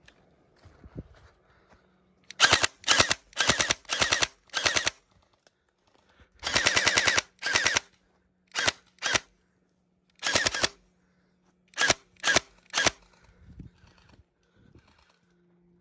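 Gel blaster firing on full auto in about a dozen short bursts of rapid shots, the longest lasting about a second and a half near the middle.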